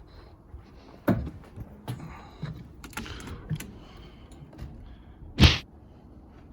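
Scattered knocks and clicks of things being handled, with one much louder sharp thump about five and a half seconds in.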